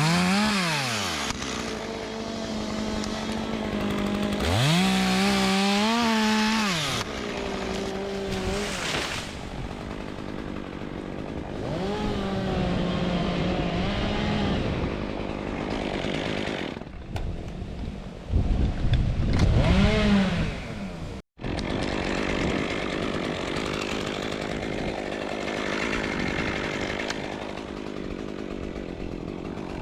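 Chainsaw revving up and down over and over, the engine rising and falling in pitch between stretches of cutting. Its loudest burst comes about two-thirds through. The sound drops out for an instant just after it.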